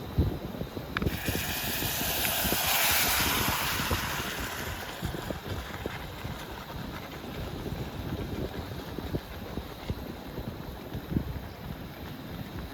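Wind buffeting the microphone in low, gusty rumbles, with a rushing hiss that swells about two to three seconds in and then fades.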